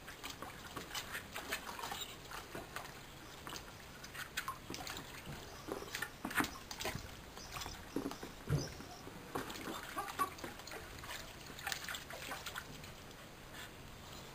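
A dog splashing and wading in a shallow plastic paddling pool while it plays with a floating ball: water sloshes and splashes in irregular bursts, with scattered knocks and a dull thump about eight and a half seconds in, the splashing dying down near the end.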